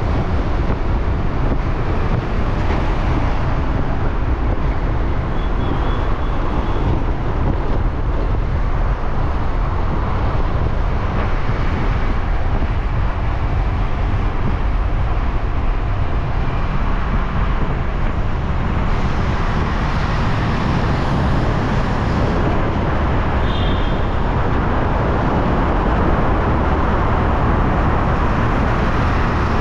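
Steady road noise of a motor scooter riding through city traffic: wind rumbling on the microphone over the scooter's engine and the passing cars and trucks. Two brief high beeps, one about six seconds in and one about two-thirds of the way through.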